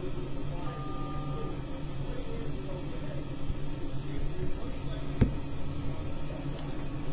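Steady low hum of room and machine noise, with a short electronic beep of two steady tones about a second in and a single sharp click about five seconds in.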